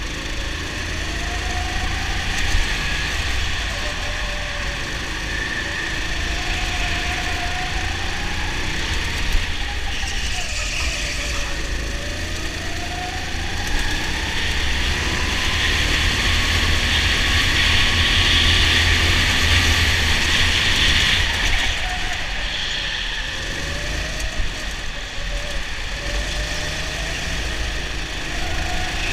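Go-kart heard from onboard at racing speed. Its pitch rises and falls as it accelerates and slows through the corners, over a heavy low rumble.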